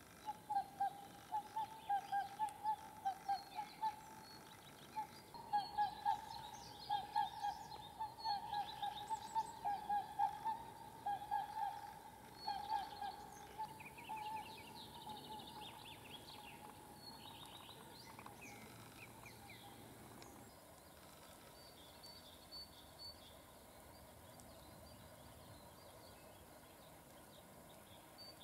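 Birds calling: one bird repeats a low call about three times a second in two runs over the first dozen or so seconds, with higher chirps and trills from other birds over it. After that only faint, scattered calls remain.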